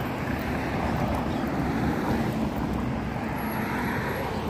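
Road traffic noise: cars driving past on a multi-lane road, a steady rush with no single sharp event.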